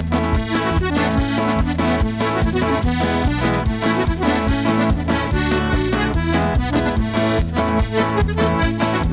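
Accordion playing a tune, its chords changing in quick succession over a steady drum beat.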